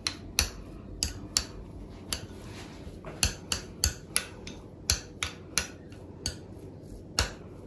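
Metal fork clinking and tapping against a small glass bowl while mixing and mashing a chopped boiled-egg filling: sharp, irregular clinks, a couple a second, with a pause of about two seconds in the first half.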